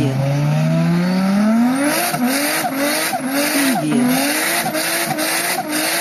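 Racing-car engine sound effect revving up, climbing steadily in pitch over the first two seconds. It then rises and drops over and over as if shifting and cornering, with sharp squeal-like crackles.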